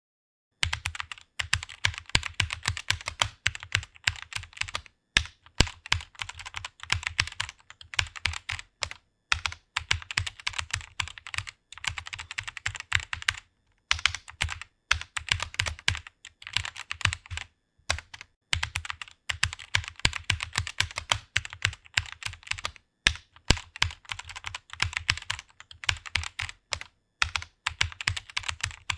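Fast typing on a computer keyboard: a rapid stream of keystrokes that starts about half a second in, broken by short pauses every four or five seconds.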